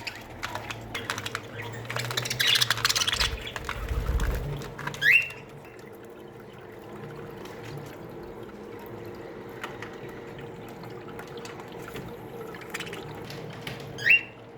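Budgerigars in an aviary colony: scattered clicks and chirps, busiest and loudest in the first five seconds, with two short, loud rising calls, one about five seconds in and one near the end.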